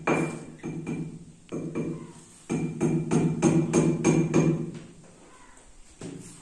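A hammer knocking a nail into a wall, a few scattered strikes and then a quicker run of about four blows a second, with a ringing hum under the faster blows.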